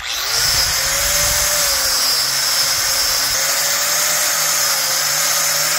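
Electric angle grinder with a wire cup brush starting up and running, the brush scrubbing rust and old paint off a steel Bombardier bogie wheel with a strong hiss over the motor's whine. The whine rises as it spins up at the start, sags slightly under pressure midway, and begins to wind down at the very end as it is switched off.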